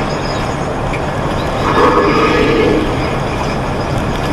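Hippopotamus giving a drawn-out, honking call about two seconds in, from a hippo documentary, over the steady low drone of a semi truck running down the highway.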